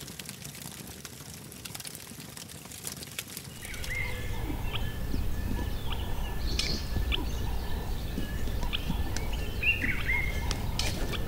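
Outdoor village ambience: faint crackling at first, then from about four seconds in a low rumble with repeated short bird calls.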